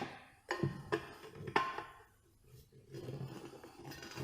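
Sharp knocks and clinks of a metal tire tool against a lawn mower wheel rim while the tire bead is pried over the rim in small bites, with the loudest knock at the very end.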